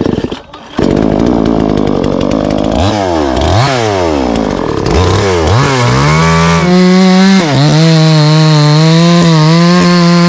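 Chainsaw engine revving up and down in quick swells, then from about six seconds in holding a steady high rev, with one brief dip. There is a short drop-out just under a second in.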